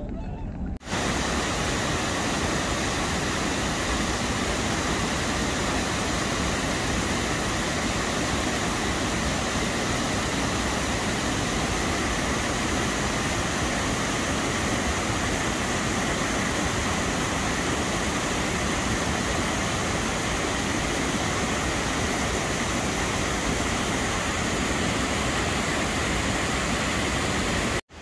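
Mountain stream rushing over a rocky cascade: a loud, steady rush of water. It starts about a second in and cuts off abruptly just before the end.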